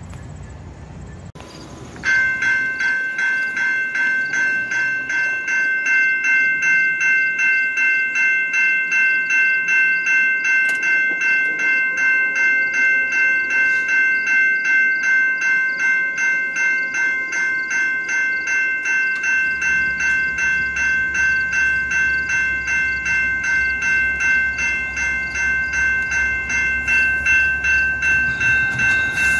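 Level-crossing warning bell ringing in an even, quick rhythm of about two to three strokes a second, starting about two seconds in. From about two-thirds of the way through, the low rumble of an approaching commuter train's locomotive joins it.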